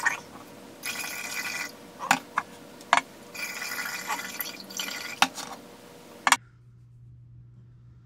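Cold brew coffee poured from a pitcher into a narrow-mouthed mini keg, gurgling in several pours with short pauses, with a few sharp clicks. The pouring stops abruptly about six seconds in.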